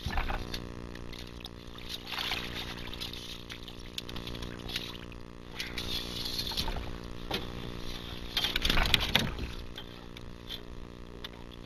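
A boat's outboard motor idling steadily, with water splashing in several bursts as a hooked channel catfish is brought in, the loudest about nine seconds in.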